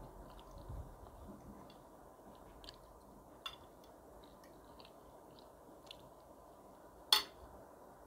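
Close-up chewing and wet mouth sounds of someone eating spaghetti, with small scattered clicks. A single sharp clink about seven seconds in is the loudest sound, with a smaller one about halfway through.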